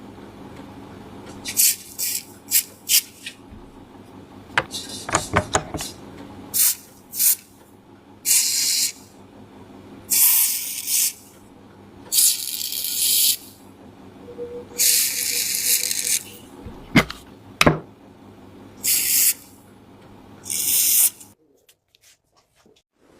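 Short bursts of hissing spray, six of them, each lasting about a second, with sharp clicks and knocks of parts being handled in between, on rusty K98 rifle parts during a rust restoration.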